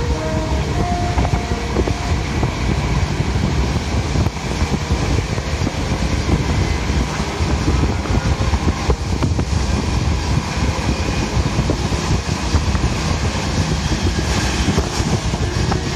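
Passenger train running at speed, heard from inside the carriage: a steady low rumble of wheels on track, with a few brief faint tones in the first second or so.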